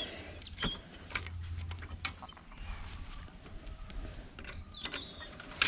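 Needle-nose pliers working at the metal clip holding the deflection yoke on a CRT tube neck: scattered small clicks and creaks, a sharper click about two seconds in and a louder one near the end, as the clip is worked off.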